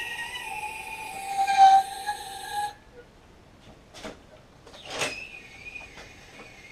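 High-pitched metallic squeal for nearly three seconds as parts are worked on a VR6 engine hanging from an engine hoist, then a few light clicks and knocks.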